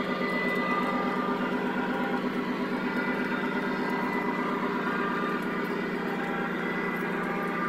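Lionel Legacy ES44 model locomotive's onboard diesel engine sound, a steady, pulsing rumble, as the O-gauge train rolls along the track.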